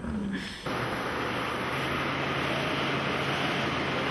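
Bass boat's outboard motor running at speed with a steady rush of wind and water noise, starting abruptly about two-thirds of a second in.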